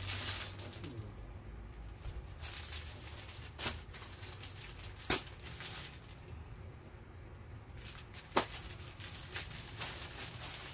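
Clothing packed in plastic bags rustling and crinkling as the packs are handled and sorted, with a few sharp crackles of the plastic, the loudest about eight seconds in.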